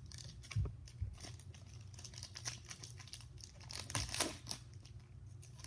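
Foil wrapper of a trading-card pack crinkling and tearing as it is opened by hand, in irregular rustles with a louder burst about four seconds in.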